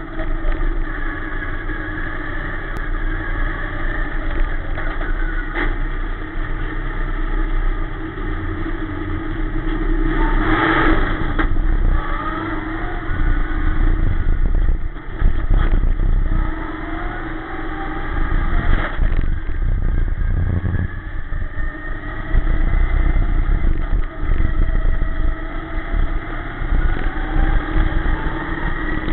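Dirt-track sportsman race car's engine heard from inside the cockpit while racing, its pitch climbing under throttle several times and dropping off between. A few knocks and clatters, with a louder burst of noise about ten and a half seconds in.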